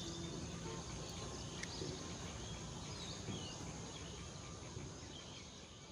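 Faint outdoor ambience: a steady insect hum with scattered short bird chirps, fading out near the end.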